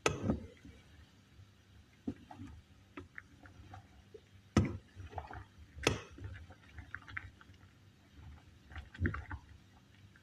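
A spoon knocking and clinking against a saucepan while a pot of water with fruit and spices is stirred: a few sharp knocks, the loudest at the start and about four and a half and six seconds in, with lighter clinks between and faint liquid sounds.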